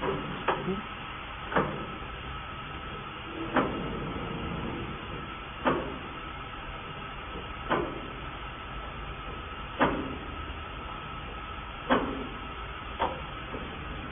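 Automatic loading and unloading system of a fiber laser cutting machine running with a steady mechanical hum and a faint high whine, punctuated by a sharp knock about every two seconds.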